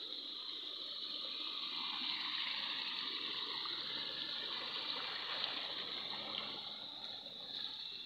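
Shallow rocky stream running steadily over stones.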